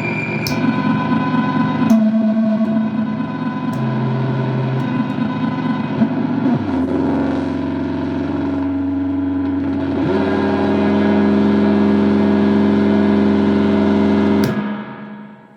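Noise drone instrument sounding layered, sustained droning tones that shift to new pitches every few seconds, with sharp clicks at some of the changes. After a loud click near the end, the drone dies away.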